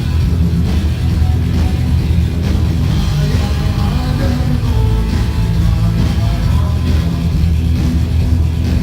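Rock band playing live, loud and steady, with the bass and drums heaviest.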